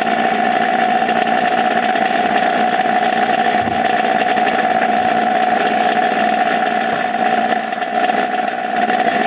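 Small electric grinder's motor running steadily with an even, high hum, used to grind a homemade lock pick.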